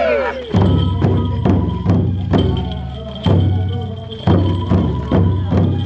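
Japanese folk festival drumming: a deep drum beaten about once a second, with sharp wooden clicks of sticks between the strokes.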